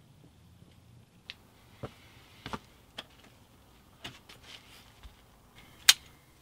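A few soft clicks and knocks spread over several seconds, then one sharp, loud click near the end as a door handle and latch are worked.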